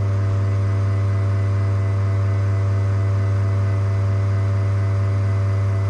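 Profitec Pro 700 espresso machine's rotary pump running steadily during a shot's pre-infusion and extraction, a constant low hum.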